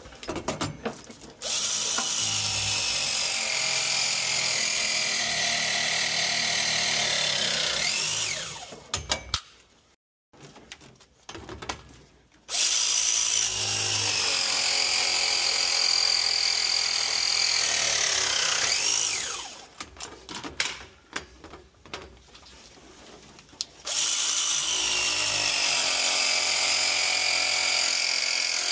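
Battery-powered copper press tool crimping press fittings: three pressing cycles of about six seconds each, the motor running steadily and then gliding in pitch as each cycle finishes before it stops. Between cycles there are light clicks as the tool is moved to the next fitting.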